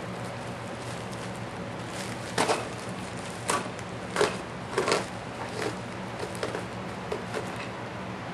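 Plastic poly mailer crinkling and tearing as it is cut open with a knife, in a string of short crackly bursts, the loudest about two and four seconds in.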